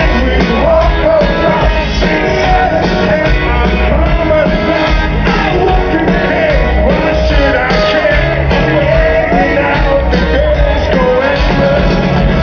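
Rock band playing live, loud, with a singer's voice carried over the full band.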